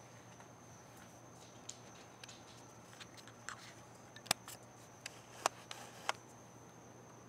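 Irregular light clicks and taps, about ten over a few seconds, as a pitbull puppy noses and mouths at the camera close up.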